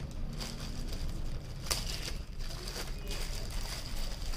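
Light crinkling and a few sharp clicks of small mirror pieces and their plastic packet being handled, over a steady low hum.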